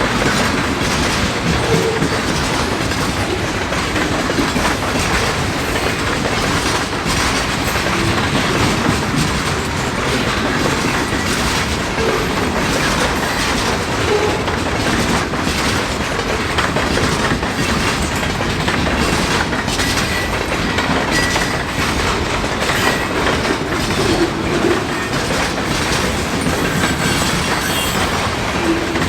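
Freight cars of a mixed freight train rolling past: a steady noise of steel wheels on rail, with the clickety-clack of wheels crossing rail joints.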